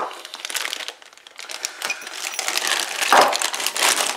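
Parcel packaging crinkling and rustling as it is unwrapped by hand, a dense run of small crackles, louder near the end.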